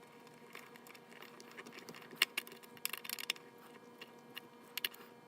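Scattered small clicks and taps from hand work on mandolin hardware, with a quick cluster of them about three seconds in.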